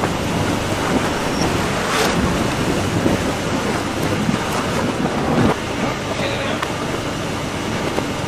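Inclined coconut conveyor belt running with a steady noise, with a few sharp knocks of coconuts being tipped from a plastic basket into its hopper.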